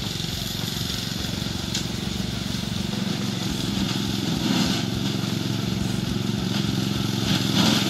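Orec RM85B ride-on mower's engine running steadily as it cuts through tall grass, a steady low drone.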